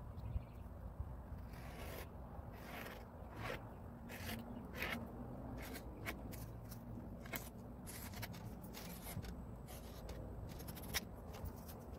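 A metal straightedge and hands scraping and rubbing over a leather hide, a series of short scraping strokes about once or twice a second.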